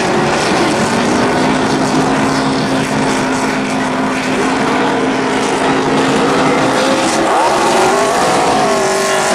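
Several NASCAR Camping World Truck Series V8 engines running on pit road. One steady engine note holds for several seconds, then several engine notes rise and fall near the end as trucks accelerate.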